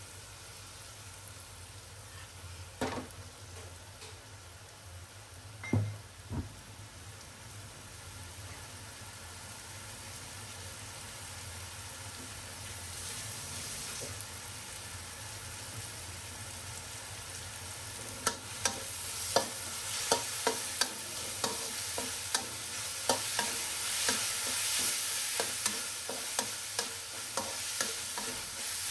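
Minced pork sizzling in a wok, the hiss growing louder as dark sauce cooks in. There are two single knocks first, then a metal spatula scrapes and taps against the wok in quick strokes over the second half.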